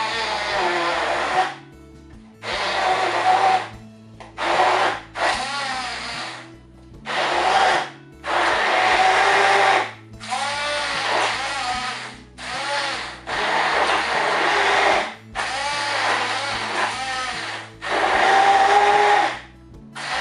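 Hand-held immersion blender blending tomatoes in a plastic measuring jug, switched on and off in about a dozen short runs, its motor pitch rising and falling within each run.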